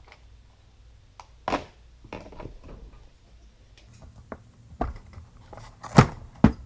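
Bicycle tire being worked off the wheel rim by hand: scattered clicks and knocks with short scraping rubs, the loudest knock about six seconds in.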